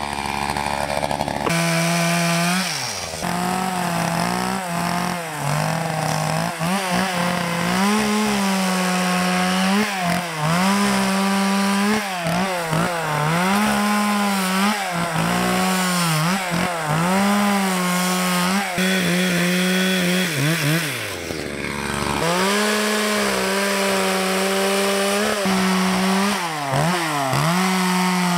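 Gasoline chainsaw cutting into a western red cedar log, its engine revving and sagging over and over as the chain bites into the wood and eases off. About 20 seconds in the revs fall away briefly, then pick back up.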